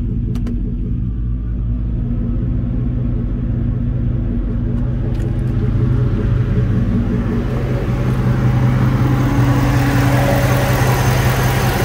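A Chevrolet Tahoe V8 idling steadily while its electric radiator cooling fan runs on its high speed. The rush of air from the fan grows louder over the second half.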